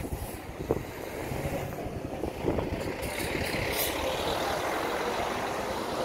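A large motor vehicle running, its rumbling noise growing louder over the first few seconds and then holding steady.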